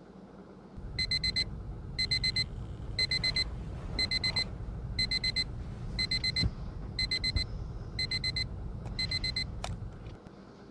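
Electronic wake-up alarm beeping: nine short bursts of rapid, high-pitched beeps, about one burst a second, over a low buzz. The beeping stops near the end, followed by a single click.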